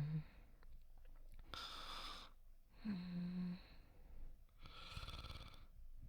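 Soft human snoring performed by a voice actor: slow sleeping breaths, each a breathy rasp followed by a short low hum that drops in pitch, repeating about every three seconds.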